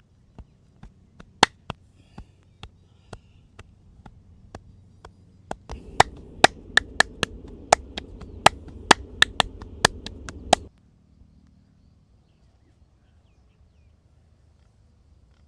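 Sharp slaps and claps of a massager's hands in a percussive chopping massage, spaced out at first, then a quicker run of louder claps over a low rumble that cuts off suddenly about ten and a half seconds in.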